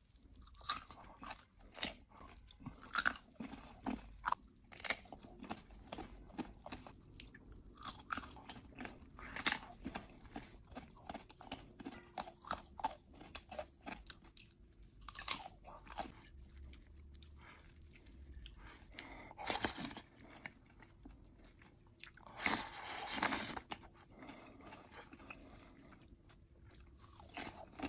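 Close-miked eating: a person biting and chewing bone-in meat, with many irregular sharp crunches. There are two longer noisy stretches about two-thirds of the way through.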